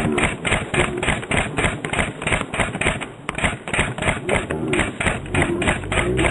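Paintball gun firing rapidly, a fast even string of sharp pops at about five shots a second, with a brief pause about three seconds in.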